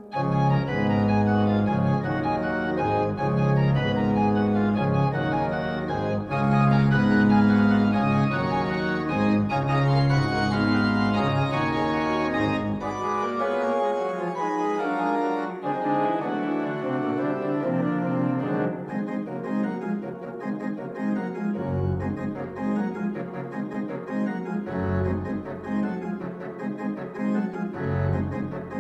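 Church organ playing a postlude in sustained full chords. A deep pedal bass drops out about halfway through, leaving lighter chords with short low notes now and then.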